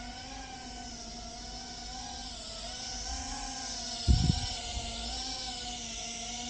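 Small brushless quadcopter motors and propellers whining, the pitch wavering up and down as the throttle is worked. A brief low thump comes about four seconds in.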